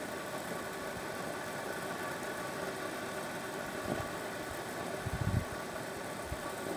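Water heating toward the boil in a covered pot over a soda-can groove stove burning methanol fuel: a steady hiss and rumble of bubbles forming on the bottom of the pan, described as quite loud. A few low thumps come about five seconds in.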